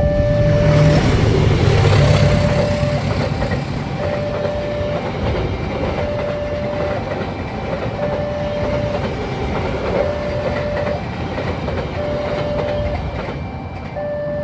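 A train passing over a level crossing, its wheels clattering on the rails, loudest in the first few seconds and then easing off. Through it the crossing's electronic warning alarm keeps sounding, a steady two-tone signal alternating between a lower and a higher pitch about once a second.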